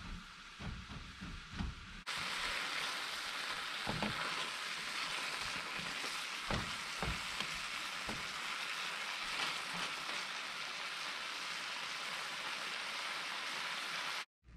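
Tomato and jalapeño sauce sizzling as it simmers down in a square copper-coloured frying pan while it is stirred with a silicone spatula. After a few soft knocks, the steady sizzle starts abruptly about two seconds in and cuts off just before the end.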